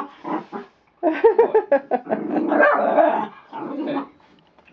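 Miniature Schnauzer puppies barking and growling at play: a few short calls, a brief pause about a second in, then a dense run of barks and growls that dies away near the end.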